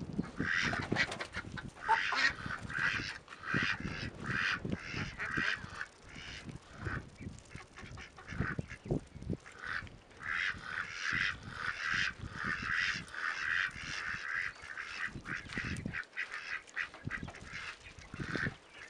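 Domestic ducks and geese calling: a near-continuous run of short quacks and honks, several a second, with a few brief lulls, over softer low rustling and knocks.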